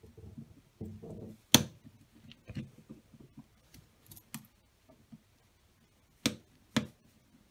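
Steel snap ring being pressed into the groove of a piston's gudgeon-pin bore with a thin pointed tool. Sharp metal clicks, the loudest about a second and a half in and two close together near the end, over light scraping and handling.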